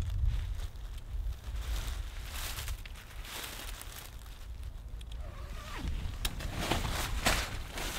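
Tent being pitched: poles and nylon fabric handled, with rustling and a few sharp clicks in two spells, the second near the end. A low wind rumble on the microphone runs underneath.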